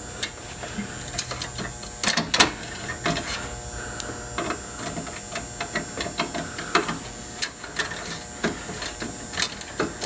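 Phillips screwdriver turning out a small headlight-bezel screw: scattered, irregular small clicks and scrapes of the tool in the screw head, over a faint steady hum.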